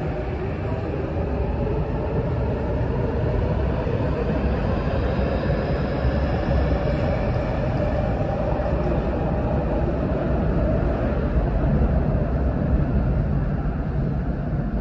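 MTR Tuen Ma line train pulling away and running, a steady rumble of wheels on rail with a faint rising whine a few seconds in.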